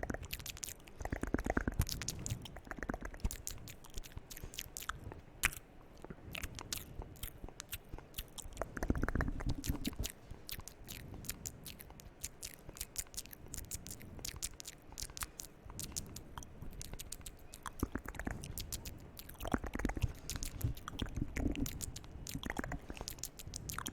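Close-miked ASMR mouth sounds: rapid wet clicks and smacks of the lips and tongue. Fuller, louder swells come about a second in, around nine seconds in and again near twenty seconds.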